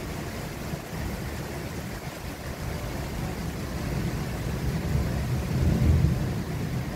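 Storm wind buffeting the microphone: a low, uneven rumble that swells about five to six seconds in.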